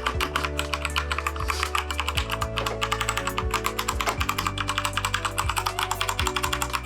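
Fast, continuous typing on a Keychron K2 mechanical keyboard fitted with unlubed Gateron switches, a dense run of several key clacks a second. Background music with steady low notes plays underneath.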